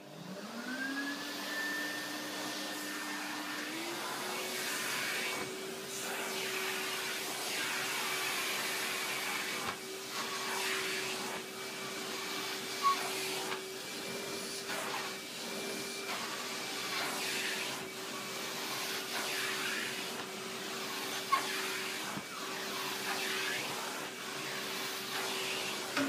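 Henry vacuum cleaner switched on, its motor spinning up with a quickly climbing whine, then stepping up to a higher speed about four seconds in and running steadily. Under it is a rushing suction noise that dips now and then, and twice a sharp knock cuts through.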